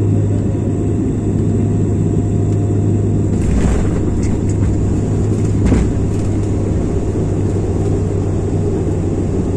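Cabin noise of a Bombardier Dash 8 Q400 turboprop rolling out on the runway just after touchdown: a steady low propeller drone over the rumble of the wheels on the runway. A short rush of noise comes about three and a half seconds in, and a brief thump just before six seconds.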